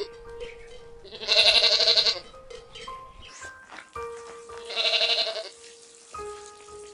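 Two loud animal calls, the first about a second long and the second a little shorter, each with a wavering pitch, over background music of held notes.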